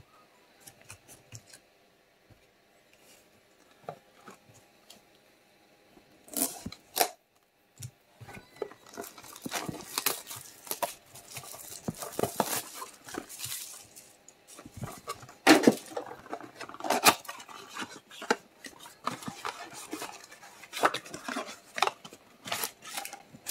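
A trading card product being unwrapped and opened by hand: plastic wrap crinkling and tearing, with clicks and clatters of the box and its contents. Only faint clicks for about the first six seconds, then steadier rustling and sharp knocks.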